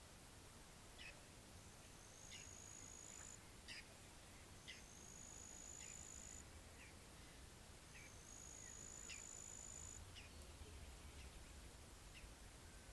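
Faint pond-side bird calls: scattered short downward-sweeping chirps, and three long, thin, very high whistles of about a second and a half each, about three seconds apart. A faint low rumble runs underneath.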